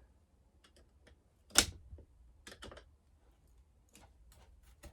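Sharp metal clicks and taps of a hand tool working at a chainsaw handle bolt, one loud click about a second and a half in, then a few lighter, scattered ones. The bolt head is packed with hardened gunk that has to be cleared before the tool can bite.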